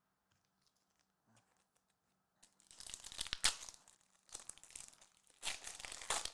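Foil wrapper of a trading card pack being torn open and crinkled by hand, in three bursts of tearing and rustling starting about two and a half seconds in.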